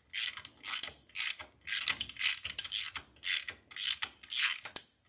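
Hand socket ratchet clicking in short bursts, about two a second, as the handle swings back and forth. The bolts of the outboard's plastic water pump housing are being run down snug.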